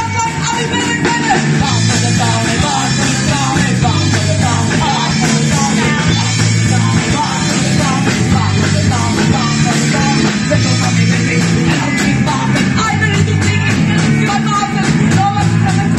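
Punk rock song: a band on electric guitar, bass and drums with a lead singer singing the verse.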